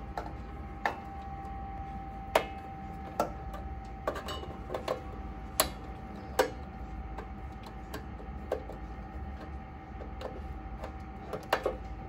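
Irregular light clicks and taps of wire crimp terminals and a tool being handled at a fire alarm control panel's terminal block as the loop wiring is disconnected, over a low hum. A steady tone sounds from about a second in.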